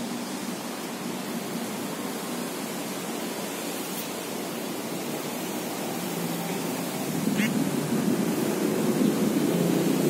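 Regency Tornado TW-14 14-inch metal wall fan running: a steady rush of air and motor hum, growing louder about seven seconds in.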